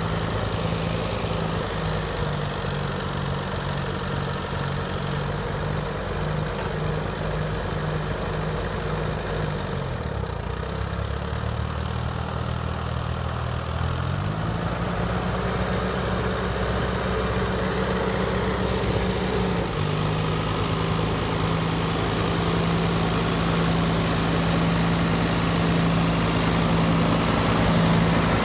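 1960 Allis-Chalmers D14 tractor's four-cylinder gas engine running as the tractor drives. Its speed drops about ten seconds in, picks back up about four seconds later and then holds steady.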